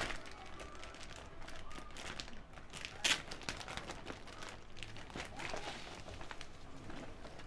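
A clear plastic bag holding a paper manual rustling and crinkling as it is handled, with one louder crackle about three seconds in.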